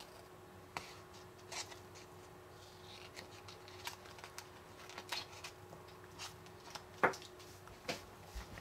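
Small scissors snipping out tiny pieces from a printed paper sheet: quiet, irregular short snips, with one louder snip about seven seconds in.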